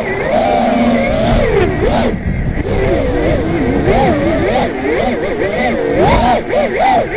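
FPV quadcopter's brushless motors and propellers whining, their pitch swinging up and down quickly with the throttle, heard through the onboard camera's microphone along with the rush of prop wash and wind.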